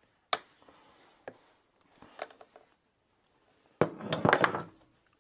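Pliers and the chainsaw's pull-start rope and handle being worked by hand: a sharp metal click, a smaller click a second later, some rustling, then a louder rattling clatter a little under four seconds in.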